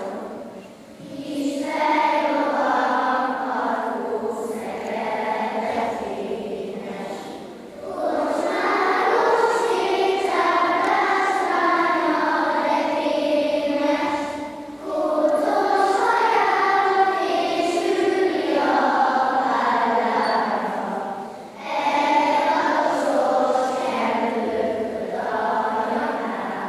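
A children's choir singing, in phrases several seconds long with short breaks between them.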